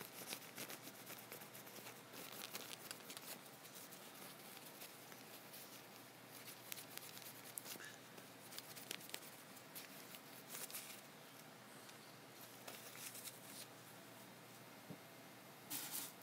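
Faint clicking from computer keyboard and mouse use: short runs of keystroke clicks with pauses between them, and a denser burst of clicks near the end.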